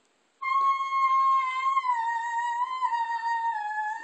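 A single long, high, held musical note, starting about half a second in and sagging slowly lower in pitch over about three and a half seconds.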